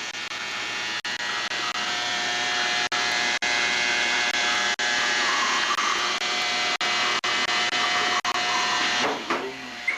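Steady mechanical whir with several steady tones over it, like a fan or blower running, building a little in level after the first second and easing near the end.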